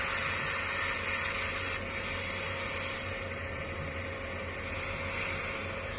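Laser cutter's air assist hissing steadily; the hiss is louder for the first couple of seconds, then drops to a quieter, even hiss as the airflow is turned down.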